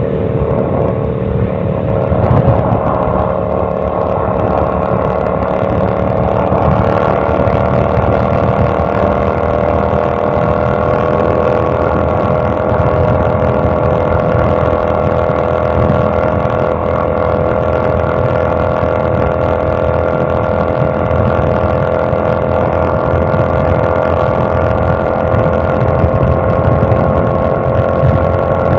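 Kasinski Mirage 250 V-twin motorcycle engine running loud at steady revs. Its pitch eases down slightly over the first several seconds and then holds even.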